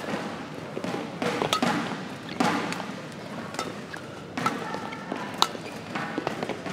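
Badminton rally: rackets strike the shuttlecock with sharp cracks about once a second, over the steady murmur of the hall.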